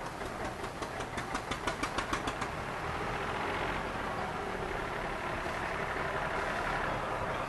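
A tractor engine running as it approaches. For the first two seconds or so it has a rapid, even ticking of about six or seven beats a second, then settles into a steadier, slightly louder running sound.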